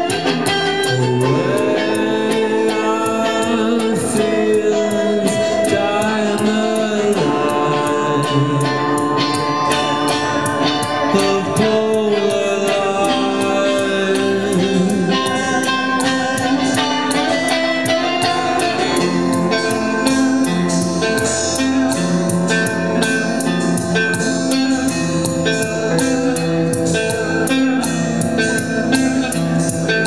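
Live band playing a slow jam: electric and acoustic guitars and a keyboard over a steady beat.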